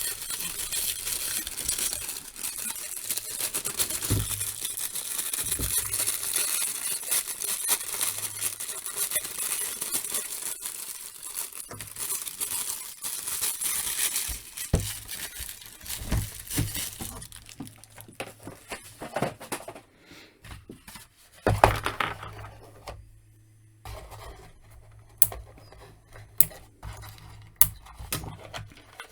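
Paper and cardboard packaging rustling, crinkling and tearing for roughly the first half, as a toy is unpacked from its plastic-free box. Then a string of small, sharp clicks and knocks of pieces being handled.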